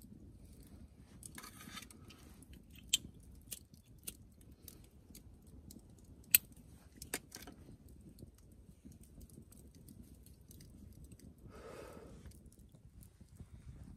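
Wood campfire crackling, with scattered sharp pops over a low steady rumble. Two short breathy hisses come in, one early and one near the end.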